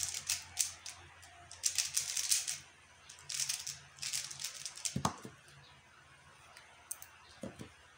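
QiYi X-Man Tornado V1 plastic 3x3 speedcube being turned at speed: dense bursts of clicking and clacking layer turns, then a sharp knock about five seconds in, followed by a few lighter knocks near the end.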